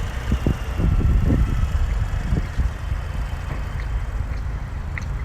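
Steady low outdoor rumble with irregular surges, and a few faint, short bird chirps over it.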